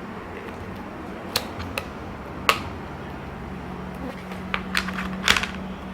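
Scattered sharp plastic clicks and knocks from short plastic pipes being pushed into holes in a plastic box. The clicks come singly in the first half and in a quicker cluster near the end, over a steady low hum.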